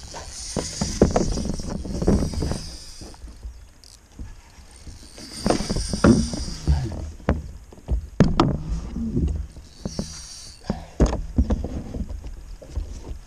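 Irregular knocks, bumps and rustling against a plastic kayak hull while a hooked fish is fought on a spinning rod and reel, with a few short spells of high hissing.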